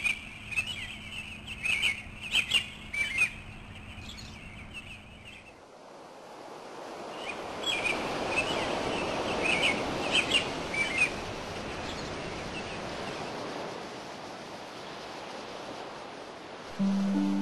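Birds chirping over a low steady hum, then a rush of water swells in and the chirps thin out. Plucked-string music begins just before the end.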